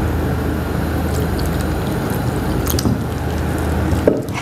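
Water pouring from a bottle into flour batter in a wooden bowl as it is stirred: a steady pouring sound that cuts off about four seconds in.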